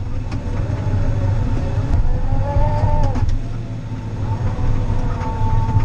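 Caterpillar 953D track loader's diesel engine working under load, with a hydraulic whine that rises and falls in pitch twice. A few sharp cracks sound over it.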